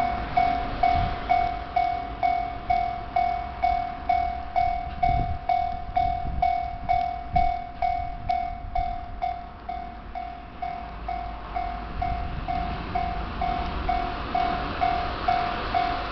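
Japanese railway level-crossing warning bell ringing in a steady electronic ding, about two strikes a second. Near the end the rumble of an approaching train rises under it.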